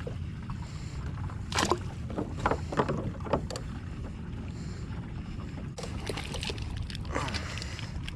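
Steady low rumble of wind and water around a fishing kayak, with a scatter of sharp knocks and clatters about one and a half to three and a half seconds in and again near the end.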